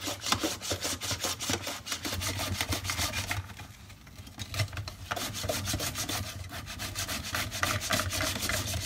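Bell pepper being sliced on a Pampered Chef Simple Slicer mandoline, its plastic food guard pushed quickly back and forth across the blade: a rapid run of slicing strokes, with a short pause about halfway.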